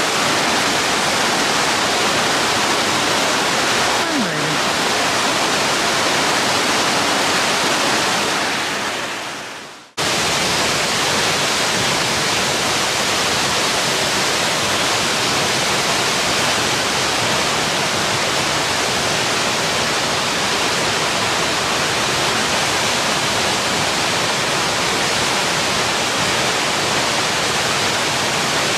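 Loud, steady rush of a waterfall close by, spray and falling water pounding onto the rocks at its base. About eight seconds in it fades away, then cuts back in abruptly a couple of seconds later and runs on unchanged.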